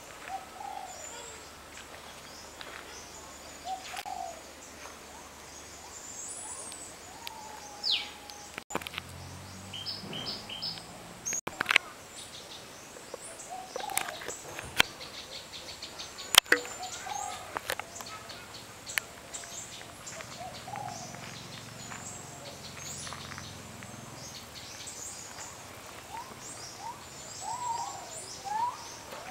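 Several rainforest birds calling, with short whistled notes, chirps and pitch glides overlapping throughout. A few sharp clicks stand out, the loudest about two-thirds of the way through.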